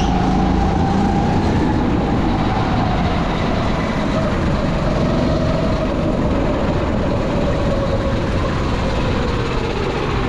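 Rental go-kart engine running continuously at speed over a steady rumble. Its pitch sags slowly from about two seconds in, as the revs come down.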